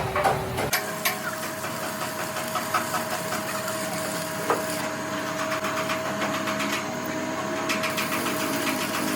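A workshop machine running with a steady high whine and scattered light clicks and ticks.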